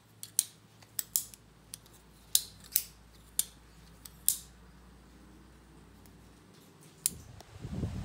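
Homemade butterfly knife (balisong) being flipped in the hand: sharp metal clicks and clacks as the handles swing and slap around the blade, about ten in quick succession, then a pause and one more click near the end.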